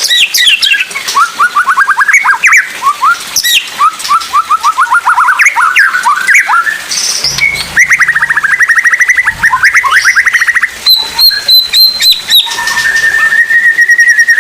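White-rumped shama (murai batu) singing loudly in fast, rapid-fire phrases: quick runs of rising notes, then a rapid trill, sharp clicks mixed with high notes, and one long steady whistle near the end.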